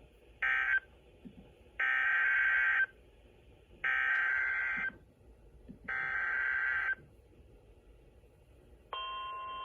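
Weather radio sending Emergency Alert System SAME data bursts: a short warbling burst, then three one-second bursts of the alert header about two seconds apart, marking a new severe thunderstorm warning. About a second before the end, the steady 1050 Hz weather radio warning alarm tone starts.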